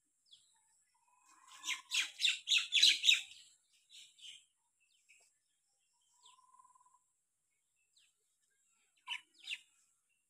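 Birds chirping and calling: a run of loud, rapid chirps about two seconds in, then scattered softer calls, and two sharp calls near the end.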